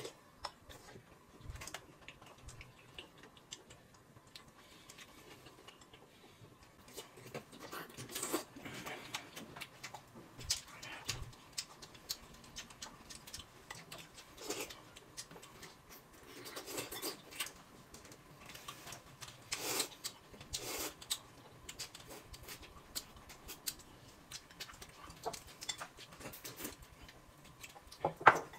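Quiet eating sounds: chewing and slurping noodles, with irregular small clicks and taps of chopsticks against bowls.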